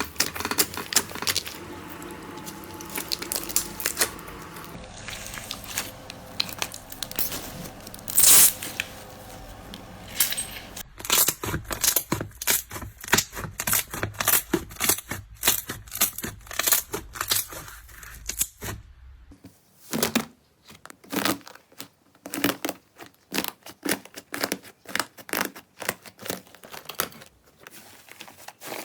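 Slime being squeezed and pressed by hand, making dense crackling, popping and squelching noises, in a few short clips that change abruptly about a third and two thirds of the way through.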